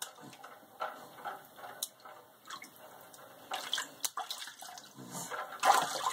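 A baby splashing shallow water in a stainless steel kitchen sink with his hand: irregular slaps and splashes, louder in the second half.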